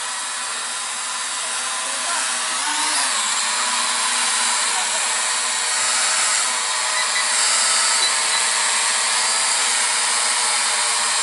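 K3 toy quadcopter's four motors and propellers whining steadily as it hovers just after an automatic take-off, with several high-pitched tones layered together. The whine grows a little louder over the first few seconds.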